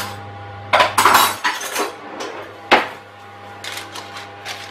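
Metal cutlery clinking and rattling as a spoon is fetched, then one sharp knock, followed by lighter taps and scrapes of the metal spoon against the spatula in a paper-lined loaf tin as batter is spooned in.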